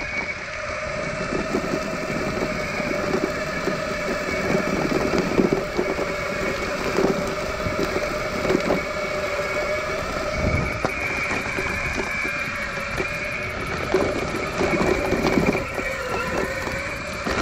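Electric off-road skateboard riding over a gravel trail: its motor drive gives a steady whine, while the pneumatic tyres rumble and knock irregularly over stones.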